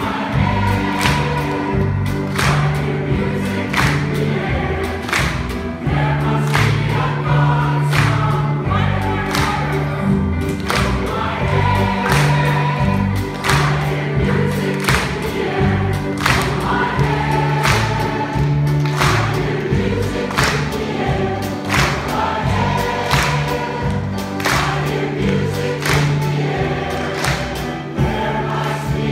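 Large mixed choir of men and women singing a lively song with instrumental accompaniment, with hands clapping along on the beat.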